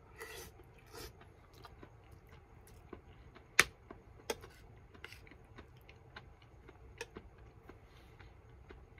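Quiet eating: chewing, with a metal spoon clinking and scraping on a ceramic plate. The sharpest clink comes about three and a half seconds in, with smaller ones shortly after and near the end.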